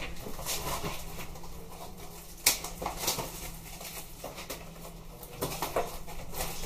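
Plastic food packaging being handled and crinkled at a kitchen counter, with scattered sharp clicks and knocks, the sharpest about two and a half seconds in, over a low steady hum.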